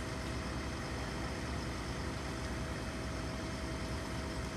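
Fire engine's engine idling steadily, with a low hum and a faint steady whine over it.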